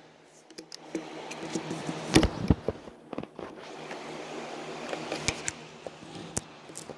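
Handling noise from a phone being moved about and propped up: scattered knocks, taps and rustles, with a louder thump about two seconds in.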